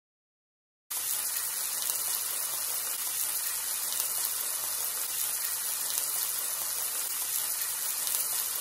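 Sliced meat frying in hot oil in a wok: a steady sizzling hiss that starts abruptly about a second in.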